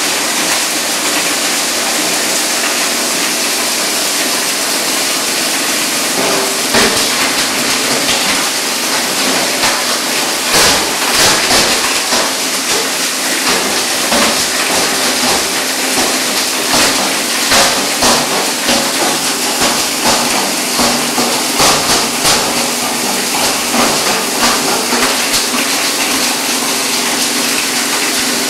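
A 20 HP three-phase UPVC pipe grinder running steadily, with irregular cracks and clatters from about six seconds in as pieces of pipe are chopped into granules.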